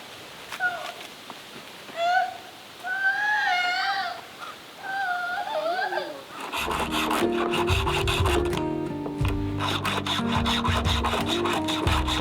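High, wavering whining cries, a few drawn-out calls that bend up and down in pitch. About six and a half seconds in, background music with a steady beat starts and carries on.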